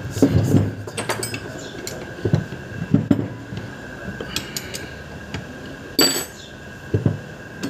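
Metal hand tool clinking, tapping and scraping against a car starter motor's housing and solenoid terminal as it is worked on by hand: irregular light clicks and knocks, with a louder scraping clank about six seconds in.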